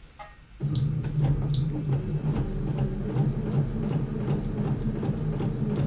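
Electric sewing machine starting up about half a second in and then running steadily, its motor humming while the needle punches through a paper practice sheet with rapid clicks.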